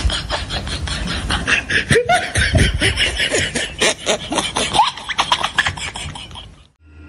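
Comedy sound effect: a fast, dense run of clicks with a few short, squeaky rising glides, cutting off sharply near the end.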